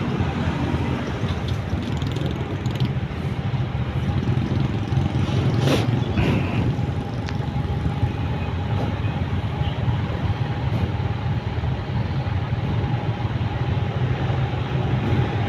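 Motorcycles idling in stopped city traffic, with a steady low rumble of engines and road noise around them. A brief sharp sound comes about six seconds in.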